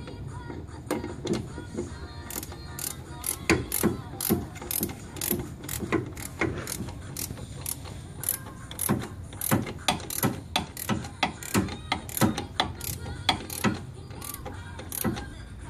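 Ratchet wrench clicking in a run of sharp clicks, roughly two a second with short pauses, as a motor mount bolt is tightened down.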